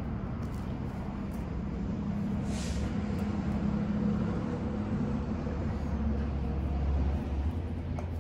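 Low engine rumble of a large motor vehicle such as a truck or bus, swelling through the middle and easing off near the end, with a short hiss about two and a half seconds in.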